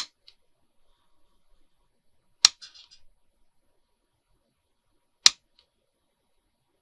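Scissors snipping through lace trim: three sharp cuts a couple of seconds apart, with a little rustling of the lace after the second.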